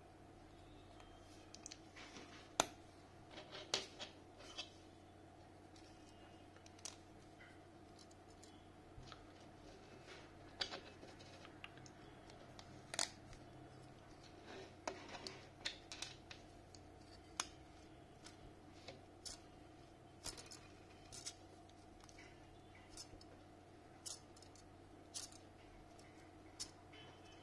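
Light, irregular clicks and taps of plastic fidget spinner parts being handled and fitted together: spiral rings and small cap pieces knocking against each other and the table.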